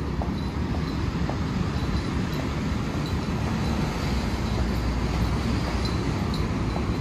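Steady Manhattan street traffic noise: a dense rumble of passing vehicles, with faint ticking about twice a second.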